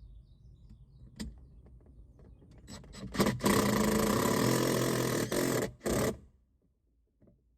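Power drill driving a screw to fasten a tractor cab headliner: a steady run of about two seconds, a brief break, then one short final burst.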